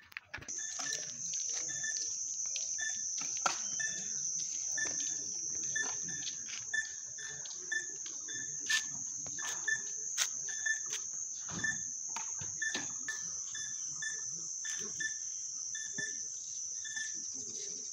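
Steady high-pitched insect buzz, with a faint short chirp repeating about twice a second and occasional sharp clicks and knocks.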